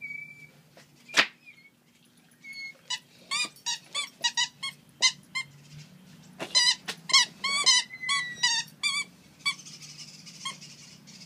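A squeaky dog toy squeaked over and over, many short squeaks at one steady pitch, as a Saint Bernard puppy chews it, with a single sharp click about a second in.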